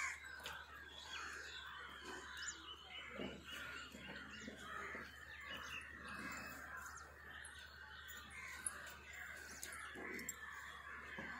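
Faint outdoor ambience of birds chirping and calling continuously.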